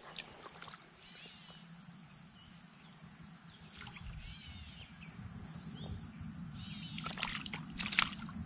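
Shallow stream water sloshing around a landing net held in the current, with two sharper splashes about seven and eight seconds in as a hand works at the small brook trout in the net. Birds call repeatedly in the background over a steady high insect hiss.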